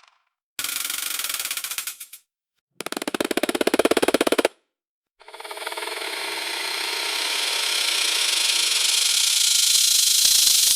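Centrifuge spinning up, in three separate takes: two short bursts of very rapid rattling pulses, then a longer whir that grows steadily louder for about five seconds and cuts off.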